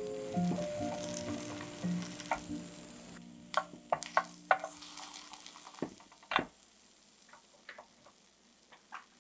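Egg sizzling faintly in a rectangular nonstick omelette pan under light background music that fades out over the first three seconds; then a wooden spatula knocks and scrapes against the pan several times as the rolled omelette is pushed into shape, the loudest knock a little past the middle.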